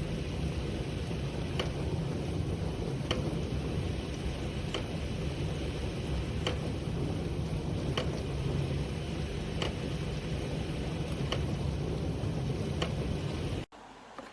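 Gorenje GI 520 E15X dishwasher running through a wash cycle: a steady hum with water spraying inside, and a faint tick about every second and a half. The sound cuts off suddenly near the end.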